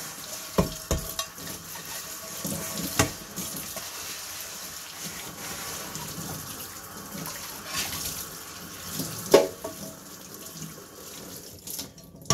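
Kitchen tap running into a sink, with a few sharp knocks and clatters of things being handled in it. The water shuts off near the end.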